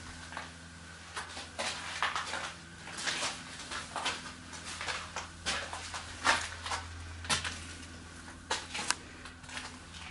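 Irregular scuffs, taps and knocks of people moving about and handling the camera in a small stone chamber, with sharper knocks about six, seven and nine seconds in, over a steady low hum.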